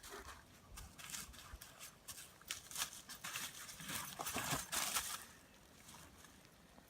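Irregular rustling, scraping and crackling noises, busy for about five seconds and then fainter.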